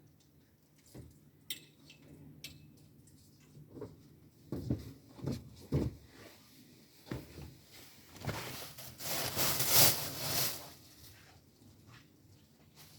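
Rustling and handling noise from laundry being hung out, with several soft knocks around five to six seconds in and a louder, longer rustle of about two seconds a little past the middle.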